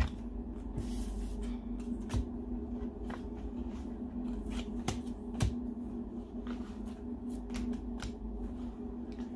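Hands sorting through paper stationery and small items on a table: rustling with scattered clicks and taps, the sharpest right at the start and another about five seconds in, over a steady low hum.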